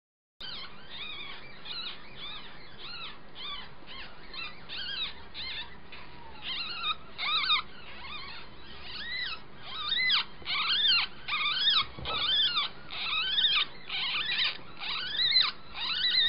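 Nine-day-old ferret kit squeaking over and over: a quick run of short, high squeaks that each rise and fall, becoming louder and more frequent about ten seconds in.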